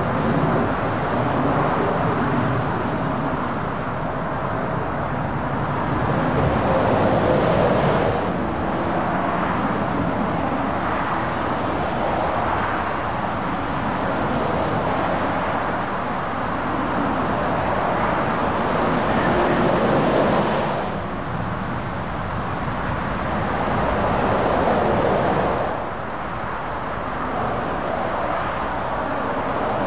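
Heavy lorries and cars passing on a dual carriageway: continuous engine and tyre noise of traffic, swelling and fading as each vehicle goes by, several times.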